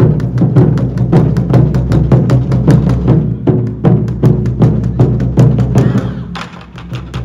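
Taiko drum ensemble beating a fast, steady rhythm of sharp strokes for a warriors' procession. The drumming thins out and softens about six seconds in.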